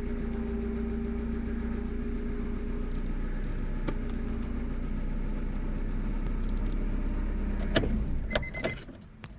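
Honda Civic four-cylinder engine idling steadily after starting. Near the end there are a few sharp clicks and knocks, and the engine hum stops.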